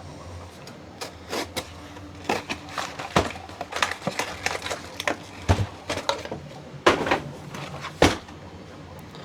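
Boxed filament spools being handled and set down: an irregular run of knocks, clicks and cardboard rustling, with a few sharper thumps in the second half.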